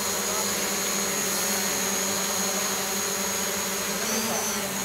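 Several small DJI quadcopter drones hovering together, a steady buzzing propeller whine with a few held tones; about four seconds in, one drone's pitch shifts briefly.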